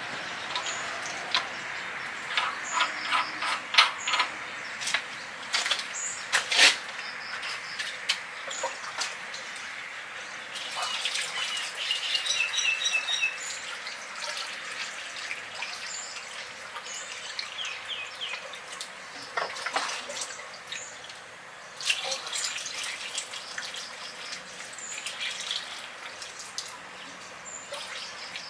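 Water running steadily. Birds chirp over it, with a quick run of chirps about twelve seconds in, and a few sharp clicks and knocks sound in the first seven seconds or so.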